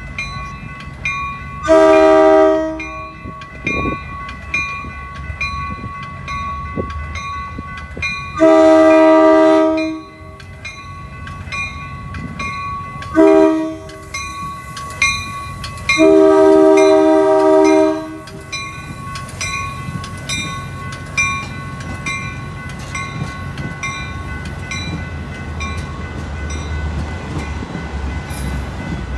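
Metra commuter train's horn sounding the grade-crossing pattern: long, long, short, long, each blast a loud multi-note chord. Under it a railroad crossing bell rings about twice a second. Near the end the rumble of the bilevel cars rolling past grows.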